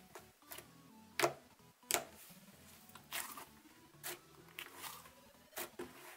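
Cloud slime pressed and stretched by hand, giving an irregular string of sharp crackling pops and squishes, the loudest two in the first two seconds.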